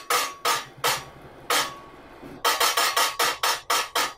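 Hand-struck metal percussion accompanying a Pavakathakali puppet show: sharp ringing strokes, a few spaced ones at first, then a quick even run of about six a second from about halfway through.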